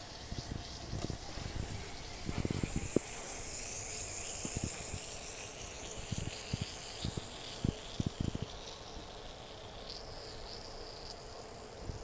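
Bath bomb fizzing as it dissolves in water: a steady high hiss that is strongest in the middle and thins out near the end, with scattered soft low knocks.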